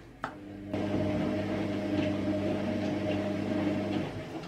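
A steady electrical hum with a low drone cuts in abruptly under a second in and drops away near the end, with a single click just before it starts.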